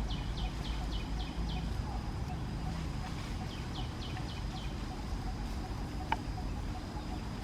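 A bird calling in two runs of short, falling high chirps, about four a second, over a steady high whine and low rumble; a single sharp click near the end.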